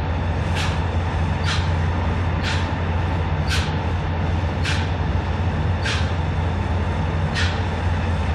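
A machine running steadily at high revs, with a constant low hum. A short hiss comes in over it about once a second, unevenly spaced.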